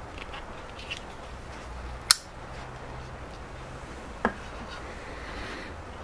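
Camp Cleaver folding pocket knife being handled: a sharp metallic click about two seconds in as the blade snaps shut, then a duller knock about four seconds in as the closed knife is set down on a wooden board. A steady low hiss runs under both.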